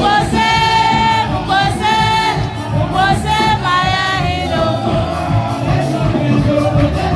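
Church worship music: loud singing voices over a band with a steady beat, with the congregation singing along.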